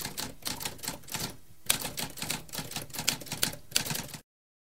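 Typewriter keys striking in a quick, uneven run of clacks, with a short break about a second and a half in, stopping about four seconds in.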